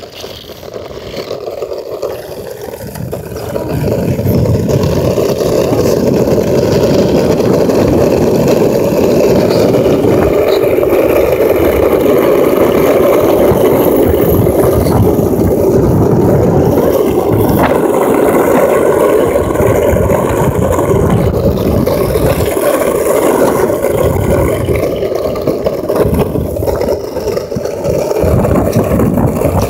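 Skateboard wheels rolling over coarse asphalt, heard close up: a loud, steady rumble that builds over the first four seconds and then holds.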